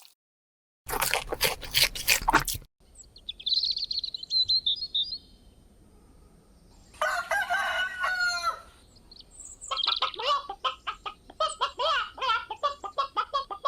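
Chickens: high chirping about three seconds in, a rooster crowing once about seven seconds in, then a run of short clucks. A burst of rustling noise comes about a second in.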